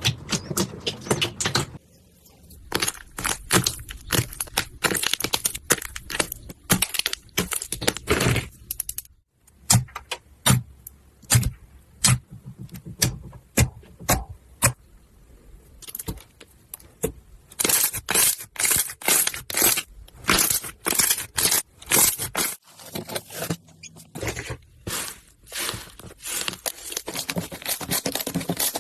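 Slime being squeezed, poked and stretched by hand, giving dense runs of sharp crackling clicks and pops from air pockets bursting, broken by short quieter pauses.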